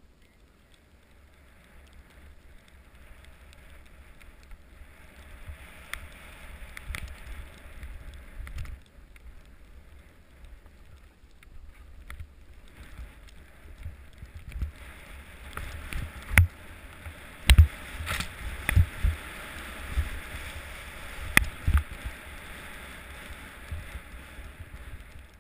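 Jack jump's single ski sliding and scraping over packed snow on a downhill run, with wind rumbling on the microphone. In the second half comes a run of sharp knocks and thuds as the ski rides over bumps.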